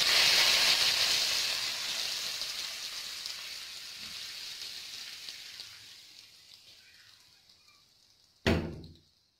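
Hot tadka, oil fried with garlic and cumin seeds, sizzling as it hits cold yogurt raita. The hiss fades away gradually over several seconds, and a short thump comes near the end.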